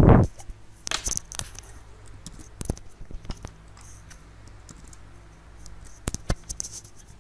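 Computer keyboard keys and mouse buttons clicking in small clusters about one, three and six seconds in, after a loud thump at the very start.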